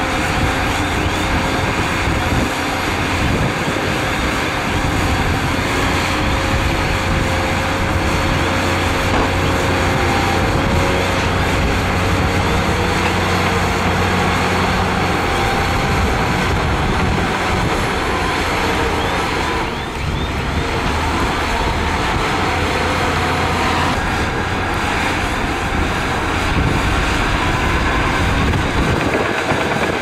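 Crawler bulldozer's diesel engine running steadily under load as it pushes soil, a constant mechanical drone that briefly dips about two-thirds of the way through.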